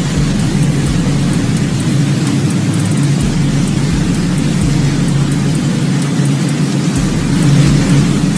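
Steady, loud rushing noise of flash-flood water and heavy rain, with a few low thuds.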